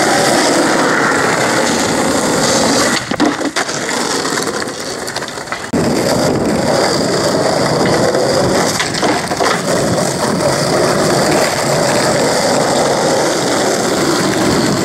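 Skateboard wheels rolling over rough asphalt, with sharp wooden clacks of the board popping and landing, about three seconds in and again around nine seconds.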